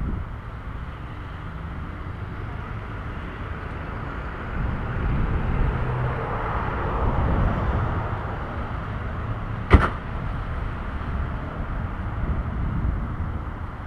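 A car passing on the road: tyre and engine noise swells and fades over a few seconds. A single sharp click or knock comes about ten seconds in.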